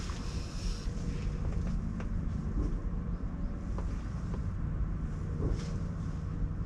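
Steady low outdoor background rumble with a few faint ticks.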